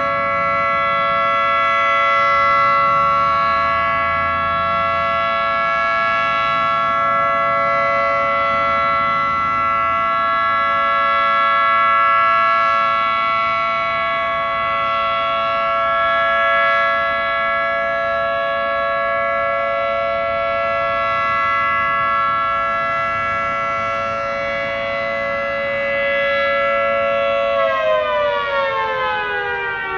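Federal Signal 2T22 dual-tone outdoor warning siren sounding its steady alert chord, a very healthy-sounding siren. About 28 seconds in, the whole chord begins to fall in pitch as the siren winds down.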